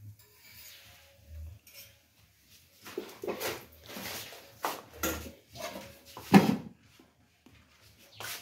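Kitchen things knocked and clattered as they are handled: a series of short knocks, the loudest a little past six seconds in.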